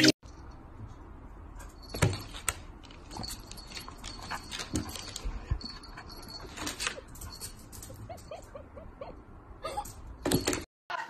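A sliding door knocking and rattling in its track as a dog pushes its head through the gap and a kitten paws at it, the sharpest knock about two seconds in. A few short, soft whimpers from the dog come near the end.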